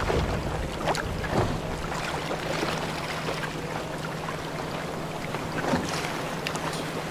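Boat at sea: a steady low hum under a wash of water and wind noise, with scattered small knocks and splashes.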